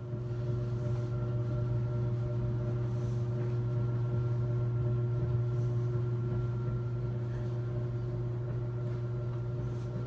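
A steady low droning hum with a few faint, higher steady tones over it. It sets in at the start and holds unchanged.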